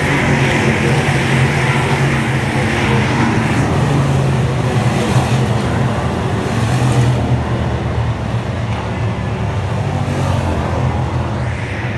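Thunder Bomber stock car racing engine running steadily at speed with a constant low engine note, easing off a little about seven seconds in.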